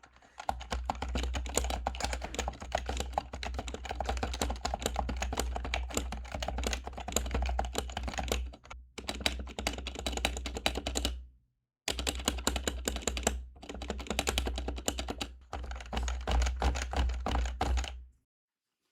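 Fast, continuous typing on a Happy Hacking Keyboard with Topre electro-capacitive rubber-dome switches. The typing breaks off briefly twice and stops near the end.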